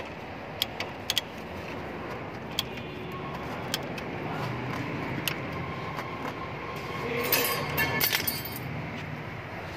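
Ratchet wrench and socket working the bolts of a car's front brake caliper: scattered sharp metallic clicks and clinks, with a busier stretch of metal rattling about seven seconds in.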